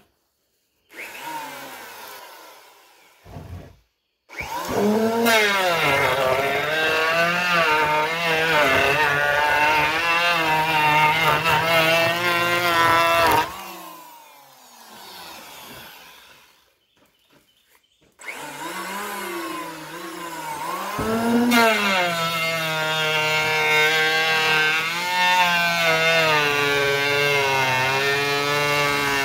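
A small electric hand planer runs and shaves the top of a rough-cut 2x4, its motor pitch wavering as the blades cut. After a brief start about a second in, it makes one long pass, stops and winds down about halfway through, then starts again for a second pass that runs on.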